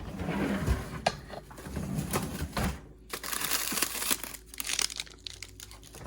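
Ice cream packaging crinkling and rustling as it is handled and opened, in uneven bursts with a brief pause about three seconds in.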